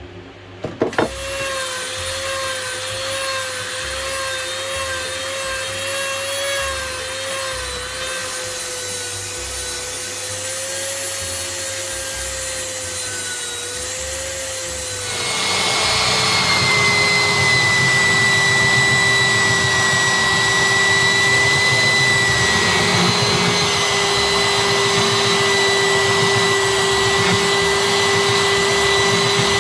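Small electric power tools sanding the steel of an old wrench: one starts up about a second in and runs with a steady whine, then about halfway a louder, noisier tool running at a different pitch takes over.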